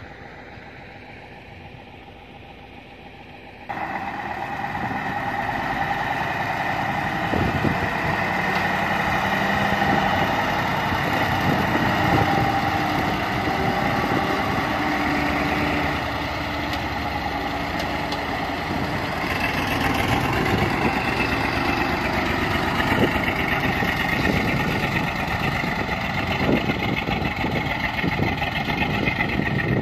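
Diesel engines of loaded dump trucks, a Nissan Diesel among them, running as they drive past. The sound abruptly gets much louder about four seconds in.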